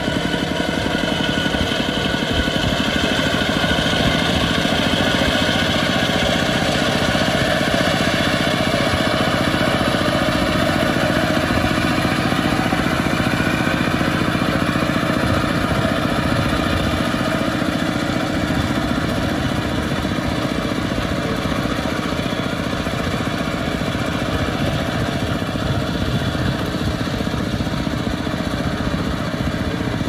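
Single-cylinder Kubota ZT diesel engine of a two-wheel walking tractor running steadily under load, dragging a harrow through paddy mud. The engine note stays even throughout, with a fast, dense firing pulse.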